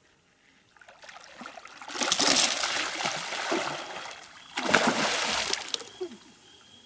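Barramundi thrashing at the water's surface: two spells of heavy splashing, the first about two seconds in and the second, shorter and sharper, near the five-second mark.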